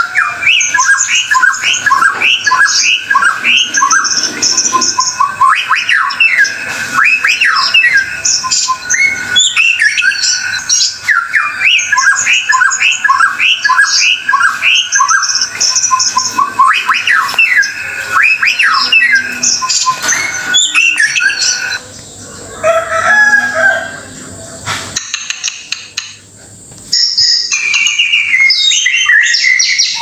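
White-rumped shama (murai batu) singing a fast, varied song of whistled notes and quick rising and falling sweeps. The song turns quieter and sparser for a few seconds past the two-thirds mark, then comes back loud near the end.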